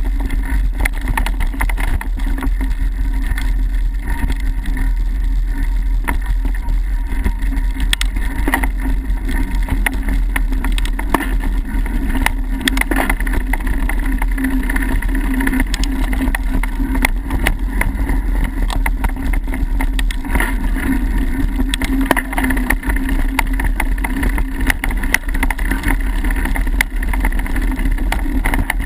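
A mountain bike riding fast over a dirt singletrack, heard through a camera mounted on the bike or rider: a steady rumble and rattle from the tyres and frame on the rough ground, broken by frequent small knocks.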